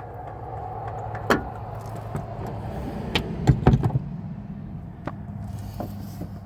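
Several sharp knocks and clanks of a tool on the oil filter as it is worked loose, the loudest cluster a little past the middle, over a steady low hum.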